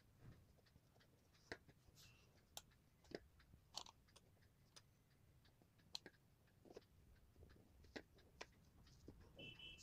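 Faint, irregular ticks and scratches of a fine-tip marker pen working on thin paper, over near-silent room tone, with a brief high squeak near the end.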